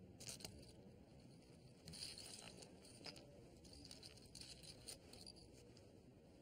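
Near silence with a few faint, scattered clicks and rustles of poker chips and playing cards being handled at the table.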